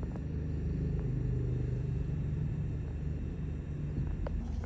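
A vehicle engine running with a steady low rumble and a low hum.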